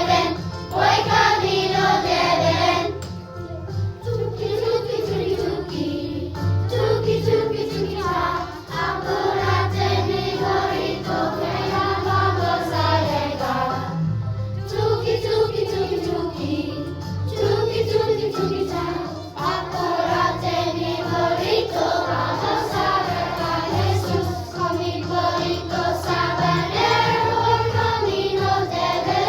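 Children's choir singing a holiday song with instrumental accompaniment.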